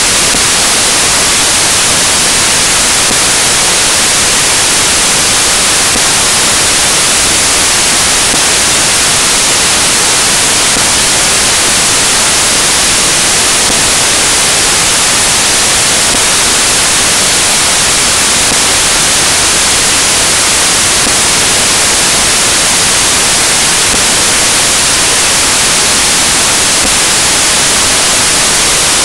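Loud, steady static hiss, even and unchanging, brightest in the high range, with no other sound in it.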